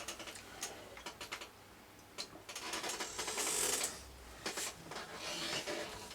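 Faint clicks and rustling of small objects being handled, with a short hissing rustle about three to four seconds in.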